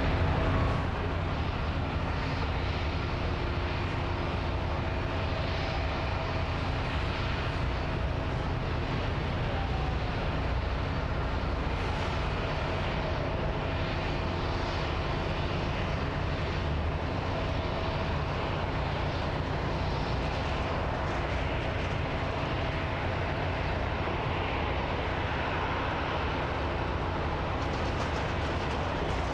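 Airbus A380 airliner's four turbofan engines on landing approach: a steady jet rumble with a faint, even whine running through it.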